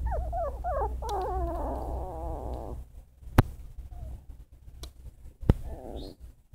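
Young American Pit Bull Terrier puppies whining and squealing in high, wavering cries, several at once, stopping about three seconds in; one shorter whine comes near the end. Two sharp clicks sound in the pause.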